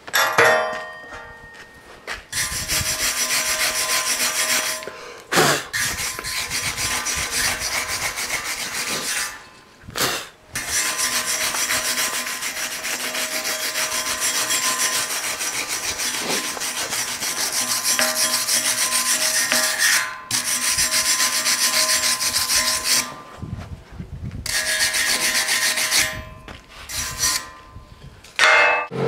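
Steel wire brush scrubbing slag off a fresh flux-core weld bead in long runs of rapid strokes, with brief pauses between runs.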